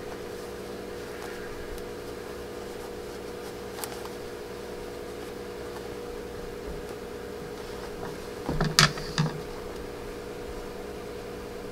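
Steady low hum in the sewing room, with a short cluster of rustling knocks about eight and a half seconds in as the fabric-covered rope lid and bowl are handled.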